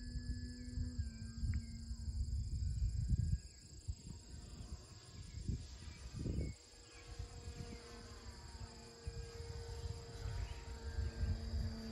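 Faint steady hum from the electric motor and propeller of an E-flite Carbon-Z Cessna 150T RC plane flying overhead, its pitch dropping slightly about a second in. It sits under gusty wind rumble on the microphone and a steady high insect buzz from the field.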